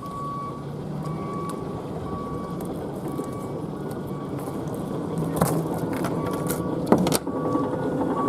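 An electronic alarm on the boat beeping steadily, one short high beep about every second, over a constant rumble of wind and boat noise. Two sharp knocks come later, the second one loudest, near the end.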